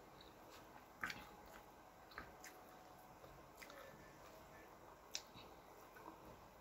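Faint sounds of a person eating rice and crispy fried small fish by hand: quiet chewing and mouth smacks with a few short clicks, the loudest about a second in.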